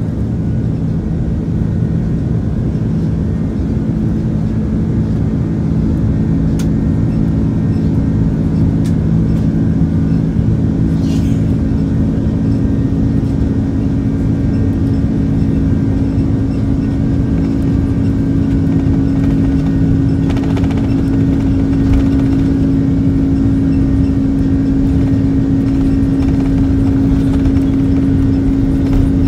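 Airbus A330 jet engines running at low taxi power, heard from inside the passenger cabin as a steady low hum with a few held tones.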